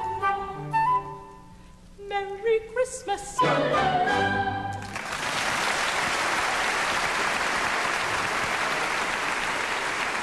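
Flute and orchestra play a closing phrase ending on a final chord; about five seconds in, the audience breaks into steady applause.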